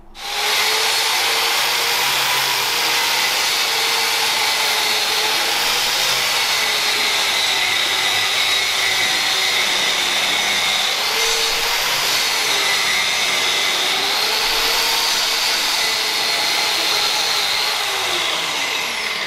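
Twin-blade wall chaser cutting a cable groove into a plaster and masonry wall, with a Henry vacuum drawing the dust through its hose. The motor whines steadily, its pitch wavering slightly as the blades take load, and it winds down near the end.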